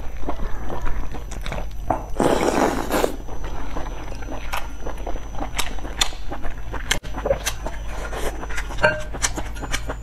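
Close-up eating sounds: a woman slurping and chewing slices of pork from a spicy broth, with many wet mouth clicks and smacks. There is one loud slurp, about a second long, a little after two seconds in.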